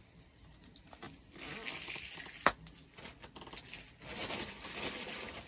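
Sizzling and crackling of food cooking over a wood fire, growing louder after about a second and a half, with one sharp click about halfway through.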